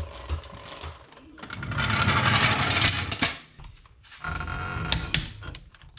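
A long-handled wrench working the lug nuts on a Ferrari 308's rear wheel: metal tool noise in two stretches, a louder one about a second and a half in and a shorter one near the end.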